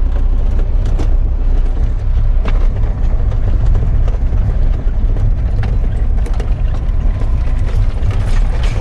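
Mercedes-Benz 711D camper van's diesel engine running at low speed over a rough dirt track, heard from inside the cab as a steady low rumble, with scattered knocks and rattles from the body over the bumps.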